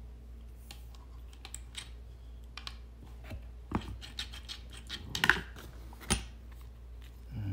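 Brass fittings and a stainless steel extension wand being handled, giving scattered light clicks and taps with some rustling of plastic packaging. The sharpest knocks come about five and six seconds in.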